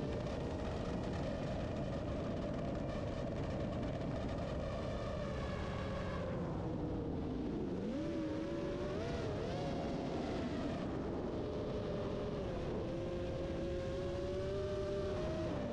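FPV racing quadcopter's electric motors and propellers whining, a pair of close tones over a steady rush of air. The pitch holds, then dips and climbs back about seven to nine seconds in, and falls again near the end.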